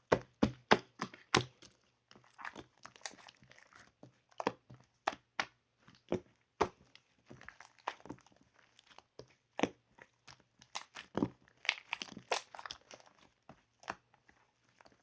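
Strawberry shaved ice (bingsu) being scooped and eaten: many sharp clicks, with crunchy, crinkly scraping in between.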